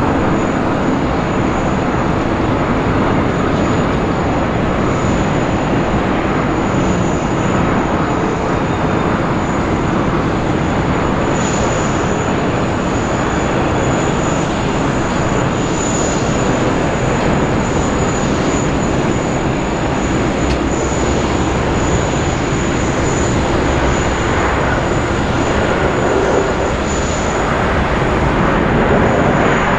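Airbus A330 MRTT (KC-30A) twin-jet airliner's engines running as it lands, a steady, loud jet rush that swells slightly near the end.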